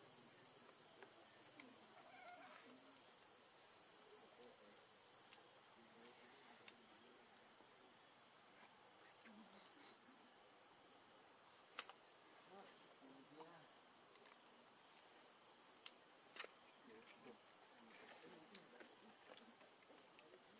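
Steady chorus of insects: a continuous high-pitched buzz, with a few faint clicks.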